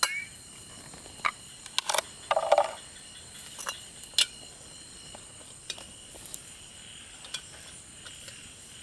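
Scattered sharp clicks and knocks, about a dozen, with a short scraping rustle about two and a half seconds in, over a steady high-pitched insect drone.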